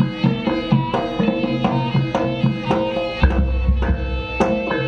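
Traditional East Javanese jaranan music: hand-drum strokes in a steady rhythm over held melodic tones. About three seconds in, a deep low tone comes in and lasts about a second.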